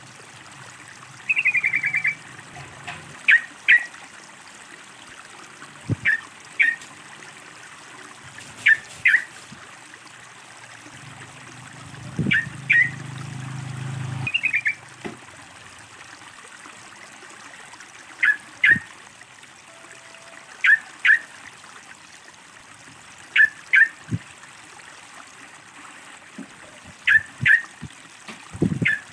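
Yellow-vented bulbul (trucukan) giving short double chirps every two to three seconds, with two quick descending trills near the start and middle, over a steady trickle of running water. About halfway a low rushing sound builds for a few seconds and stops suddenly.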